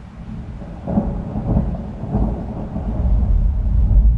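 Thunder: a crackling peal breaks about a second in, then a low rolling rumble swells to its loudest near the end.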